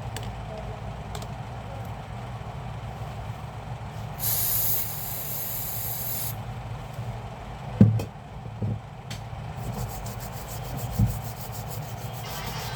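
A short hiss of about two seconds, with a few dull knocks after it, over a steady low hum.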